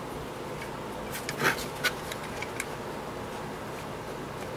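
Light clicks and a short scrape of a small diecast toy van being handled and worked on, loudest about one and a half seconds in, with a few fainter ticks later, over a steady low hum.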